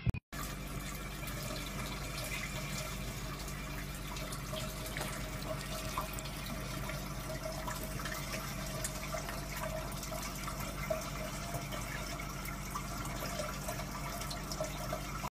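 Water running steadily from a bathtub faucet and splashing over a cat's head held under the stream.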